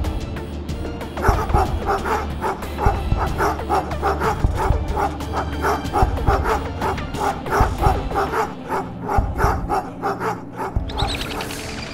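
A pack of cartoon wolves barking and yipping rapidly, about three to four short barks a second, over a low music drone. A brief swish comes near the end.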